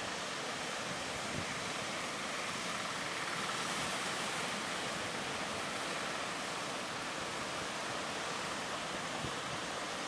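Ocean surf breaking and washing in a steady rush of noise, with a few low wind buffets on the microphone.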